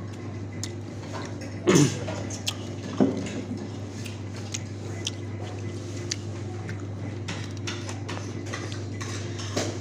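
Metal fork clinking and scraping against a metal serving platter while picking up pieces of fried octopus, with scattered small clicks and two louder knocks about two and three seconds in. A steady low hum runs underneath.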